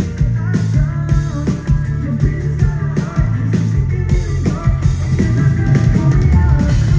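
Heavy rock band playing live, with guitars, bass and drums.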